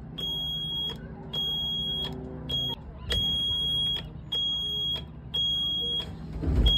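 Yanmar marine diesel's instrument-panel alarm buzzer sounding a steady high tone in broken beeps, about one a second, with the key switched on before the engine is running. Near the end a loud low rumble as the key is turned to start.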